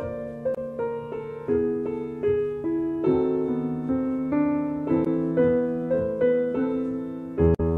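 Slow, gentle piano music: notes and chords struck about twice a second and left to ring over held low notes.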